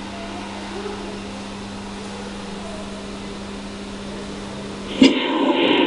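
Steady low hum over a hiss of background noise. Near the end a sudden click is followed by louder, rougher noise.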